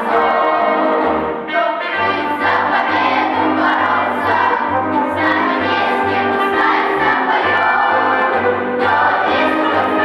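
Children's choir singing with instrumental accompaniment, a steady bass beat entering about two seconds in.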